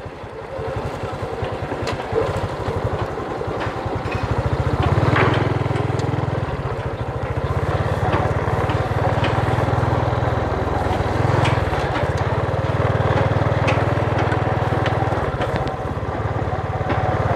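Small motorbike engine running as it is ridden slowly, its firing pulses quickening briefly about five seconds in and again about eleven seconds in.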